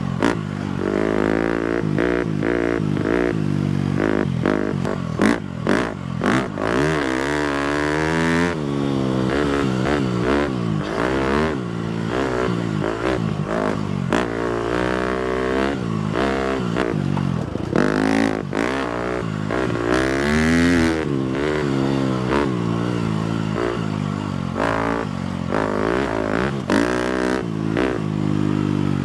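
250cc four-stroke single-cylinder dirt bike engine under way, revving up and down again and again as the throttle opens and closes, with scattered clattering knocks over the terrain.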